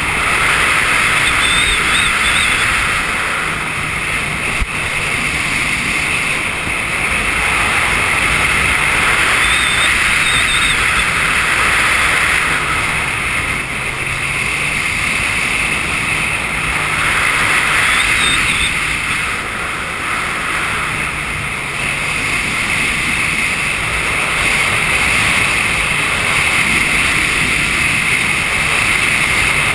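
Jet ski running at speed across choppy lake water: a steady engine drone under the hiss of spray and rushing wind, the level easing off briefly a few times.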